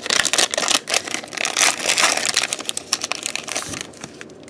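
Foil wrapper of a Pokémon trading card booster pack crinkling loudly as it is handled and opened, the crackling thinning out near the end.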